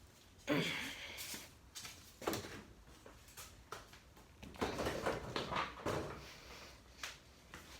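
Irregular knocks, clanks and rustling as a bicycle is handled and moved out into view.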